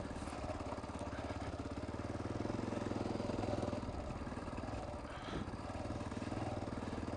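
Honda XR650R's single-cylinder four-stroke engine running steadily under way on a dirt trail. It grows a little louder in the middle, then eases off about five seconds in.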